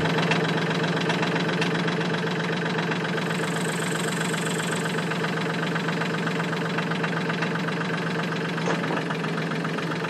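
Mahindra 1526 compact tractor's three-cylinder diesel engine idling steadily.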